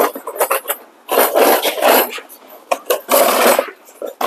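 Cardboard parts boxes being handled and shuffled: a few short clicks and taps, then two scraping, rustling noises about a second long each.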